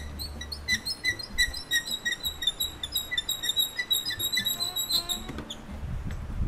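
A run of short, high squeaky chirps, about three a second, fading away about four and a half seconds in, over a faint low hum; a low rumbling noise comes up near the end.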